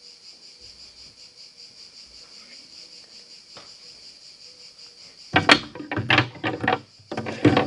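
Crickets chirring steadily in the background, then from about five seconds in, loud close rustling, crackling and knocking of objects and packaging being handled right at the microphone.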